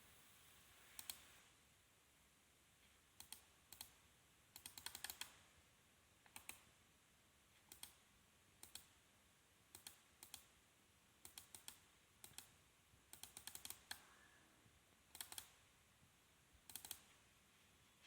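Computer mouse buttons clicking: single clicks, double clicks and quick runs of several clicks at irregular intervals, over faint room hiss.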